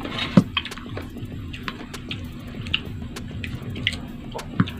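Close-up eating sounds: crisp unripe mango being chewed, with wet mouth clicks and squishes and a few sharp knocks, the loudest about half a second in and near the end.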